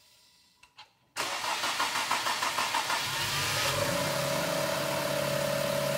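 Two faint clicks, then the 2021 Infiniti Q50's V6 cranks on the starter with an even pulsing, about five beats a second, for almost two seconds before it fires, rises in pitch and settles into a steady running note. The long crank before it catches is the hard start that goes with its P0335 crankshaft position sensor code.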